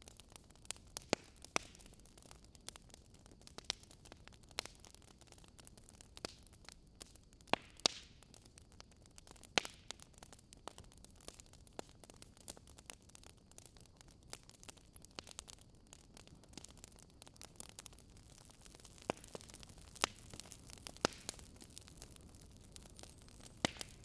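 Wood fire crackling: irregular sharp pops and snaps over a faint steady hiss.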